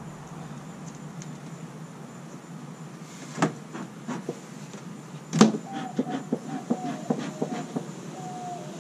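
Wooden knocks and a quick run of clicks and cracks as a beekeeper works a wooden beehive with smoker and hive tool, the boxes stuck together with propolis; the loudest knock comes about halfway through, and a few short squeaks follow near the end.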